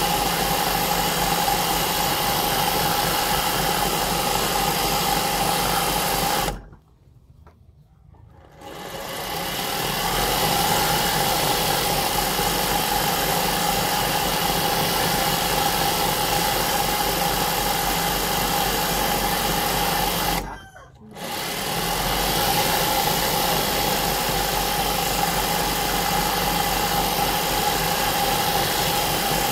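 Sewing machine running steadily at speed while fabric is hand-guided under the needle for free-motion embroidery. It stops about 7 s in for around two seconds, then builds back up to speed, and pauses again briefly about 21 s in.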